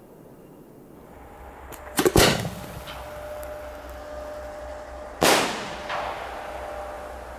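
Homemade aerial ball shell firework: a sharp double bang about two seconds in, typical of the shell being fired from its mortar. About three seconds later it bursts with a second sharp bang that echoes away.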